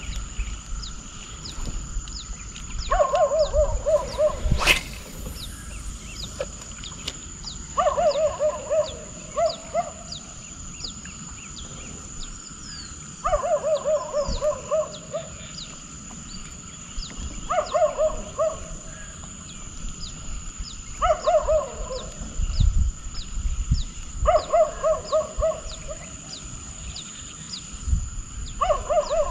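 An animal calling in repeated bouts of rapid, low pulsing notes, one bout every four or five seconds, over a steady high-pitched whine. A single sharp click comes about five seconds in.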